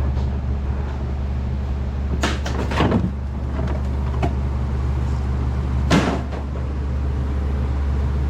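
A steady low machine hum, with a few short knocks and clatters of parts or tools being handled about two, three, four and six seconds in.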